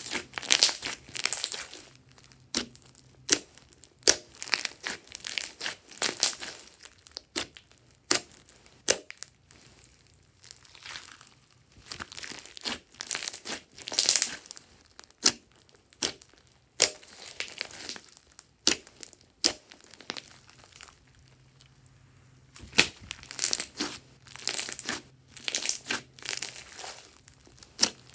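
Hands squeezing, kneading and pulling glossy slime studded with small beads. It makes irregular wet crackling and squishing in bouts of a second or two, with short pauses between the squeezes.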